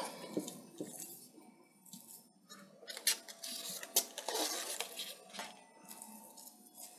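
Dry sphagnum moss crackling and rustling as hands press and tuck it into a plastic orchid pot, with a few light clicks and ticks.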